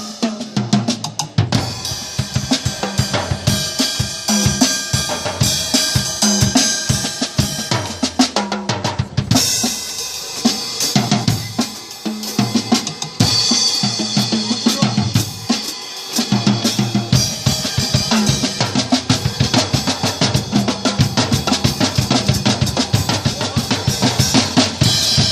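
Drum kit playing in a busy jam on compact handmade Percubo kits, one built into a suitcase: dense kick and snare hits under steady cymbal wash.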